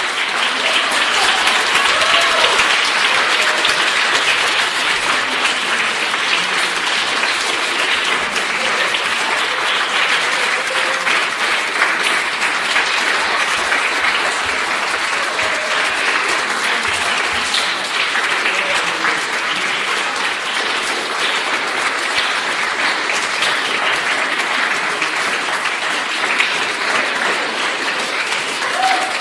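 Audience applauding steadily, a continuous dense patter of many hands clapping.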